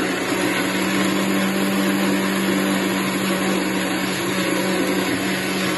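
750-watt mixer grinder running steadily on its lowest speed setting, its motor's steady hum under the loud whirr of the blades grinding in the steel jar.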